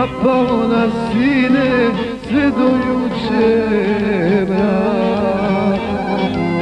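Man singing a Bosnian folk song in a wavering, ornamented style over steady instrumental backing.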